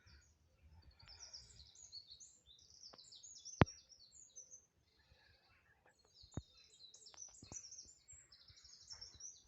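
Songbirds singing in phrases of short, high, quickly falling notes, with a few sharp clicks in between, the loudest about three and a half seconds in.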